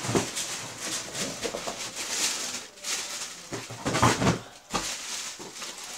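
Close rustling, shuffling and light knocks of things being handled and moved about right next to the microphone.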